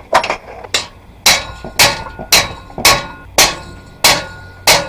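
Hammer blows on metal, about nine evenly paced strikes at roughly two a second, each ringing briefly.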